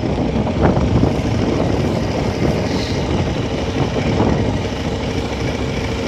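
KTM 1290 Super Adventure's V-twin engine running steadily at low speed in second gear as the bike is ridden over dirt and grass.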